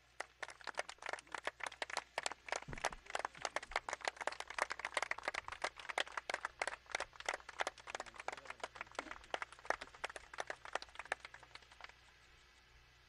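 A small group applauding, individual hand claps distinct in a dense irregular patter that dies away near the end.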